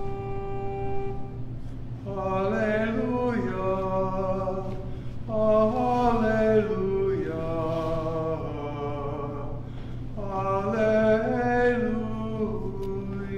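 Church organ holding a chord, then a voice singing the Gospel acclamation in three phrases over the organ.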